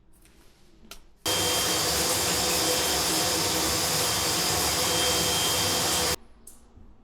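A loud, steady rushing noise that starts abruptly about a second in and cuts off abruptly about five seconds later.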